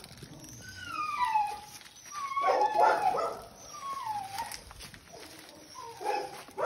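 A dog whining and yelping in a series of high cries that fall in pitch, loudest around the middle.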